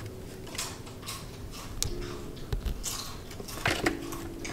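Kitten scrabbling and clawing at a sisal-rope scratching post: irregular scratchy rustles and light clicks, a few louder ones near the end.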